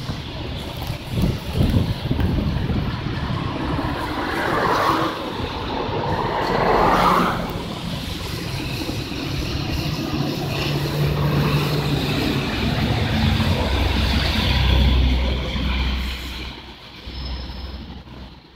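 Mercedes-Benz O530 Citaro facelift city bus driving in the street, its engine and running gear giving two rising whines about five and seven seconds in. A steady low drone builds in the second half and then fades away near the end. Throughout, tyres hiss on the wet road.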